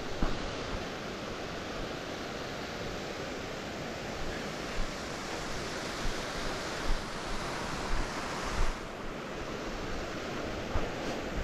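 Steady rushing of San Antonio Falls' water, with wind on the microphone adding several short low thumps.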